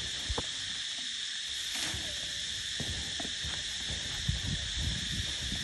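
Steady high-pitched drone of an insect chorus, with scattered short low thuds and rustles underneath.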